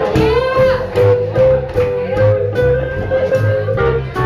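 Live band playing swing music: a lead guitar with bent notes over a moving bass line and drums.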